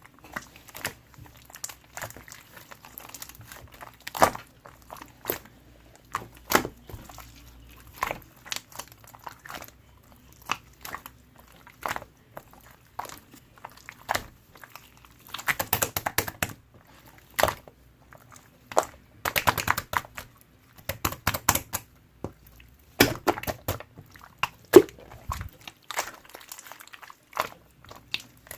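Slime being squished and pressed by hand, giving irregular sticky clicks and crackling pops, with several denser flurries of crackling in the second half.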